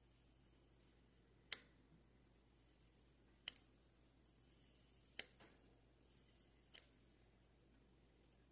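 Serrated knife cutting down through a block of kinetic sand four times. Each cut is marked by a sharp click, with a faint soft hiss from the blade in the sand between them.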